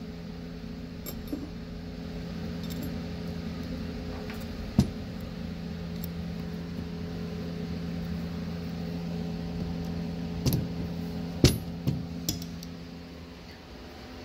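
Metal hand tools (ratchet, socket and extension) clinking as they are handled and picked up, a single clink about five seconds in and a cluster of clinks about ten to twelve seconds in, over a steady low hum.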